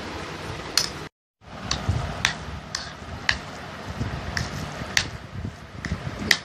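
Hand mixing mashed potato and soaked bread on a ceramic plate: a string of sharp clicks as fingers knock against the plate, over a steady background hiss. The sound cuts out for a moment about a second in.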